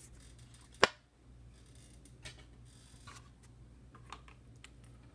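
A sharp click about a second in, then a few faint taps and clicks of handling, over a low steady hum.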